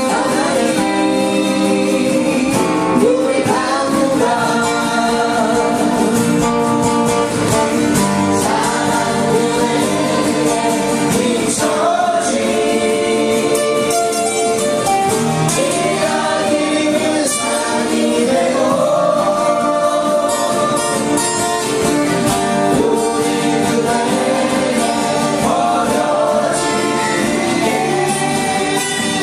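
Live acoustic performance: a woman sings a melody into a microphone over several strummed acoustic guitars.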